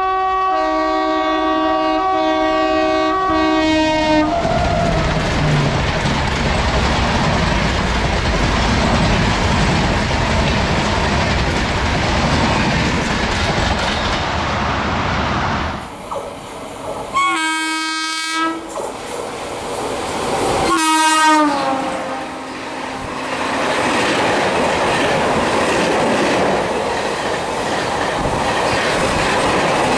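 Indian Railways express trains passing through stations at speed. A long horn blast gives way to the rush and clatter of coaches going by, then two more horn blasts, the second dropping in pitch as the locomotive passes, followed by more coaches clattering past.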